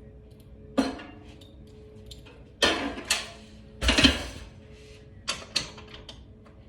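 A series of short, sharp knocks and clatters, objects or tools being handled and set down, loudest around the middle, over a faint steady hum.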